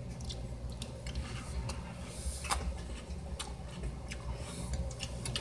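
Faint scattered clicks and light taps over a low steady hum, a few of them sharper, about two and a half seconds in.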